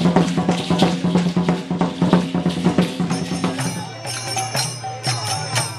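Loud parade drumming with rattling and a steady low drone. About three and a half seconds in it gives way to small hand cymbals ringing and clashing in a steady rhythm over a two-headed hand drum (karatalas and mridanga).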